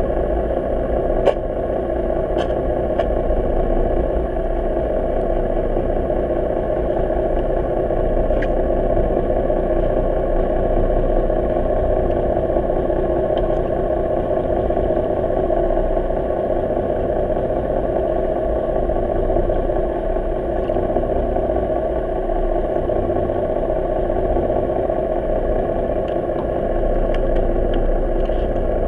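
A fishing boat's engine running steadily, heard underwater through a GoPro's waterproof housing as a muffled, even drone with a few faint clicks.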